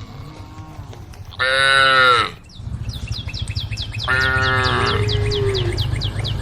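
Cattle mooing: a short, high call about a second and a half in, then a longer one at about four seconds that trails off lower. Under them a steady low hum and a rapid run of high chirps begin a little before the middle.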